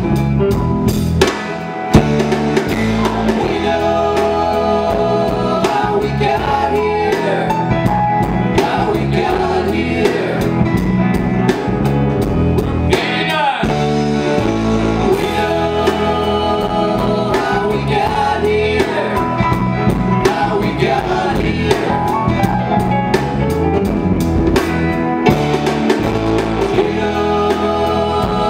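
Live rock band playing a song with a man singing lead: electric guitar, bass guitar, drum kit and keyboard.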